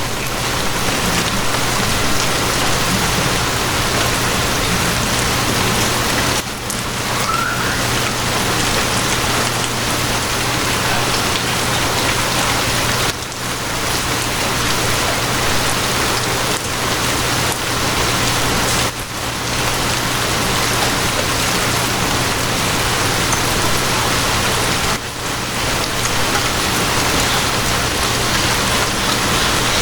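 Steady heavy rain falling on a surface, an even hiss with a constant low hum underneath. The rain briefly dips in loudness about every six seconds.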